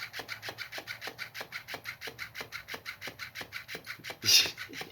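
Motorized flopping-fish cat toy running, its tail flapping with a fast, even rasping rhythm of about eight strokes a second: a metallic, motorized sound like someone sawing wood. A brief louder noise breaks in about four seconds in.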